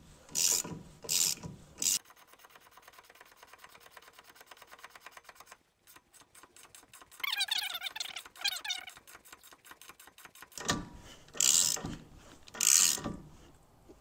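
Ratchet wrench turning the nut of a threaded bearing press tool, pulling a wheel hub into a new wheel bearing. Loud strokes of ratchet clicking at the start and near the end, a run of fast even ticks in between, and a squeaky creak about halfway through.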